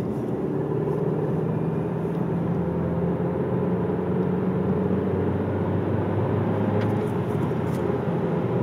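Skoda Superb being driven, heard from inside the cabin: a steady low engine hum with tyre and road noise. A few faint clicks about seven seconds in.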